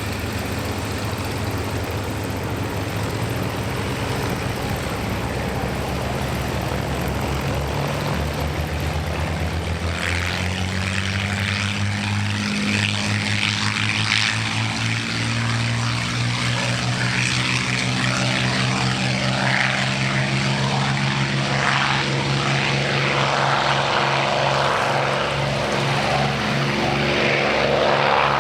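XP-82 Twin Mustang's two V-12 piston engines running. About a third of the way in they are throttled up: the engine note rises in pitch and grows louder and rougher, then holds at high power.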